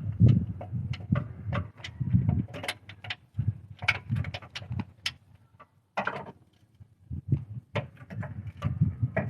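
Hand ratchet clicking and metal tools knocking in an irregular run while a tight engine bolt is worked loose, with a short pause a little past halfway.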